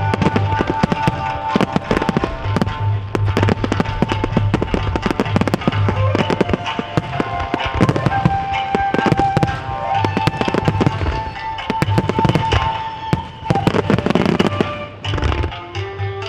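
Fireworks display: a rapid, dense barrage of bursts and crackling with no break. Music with held melody notes plays under the explosions.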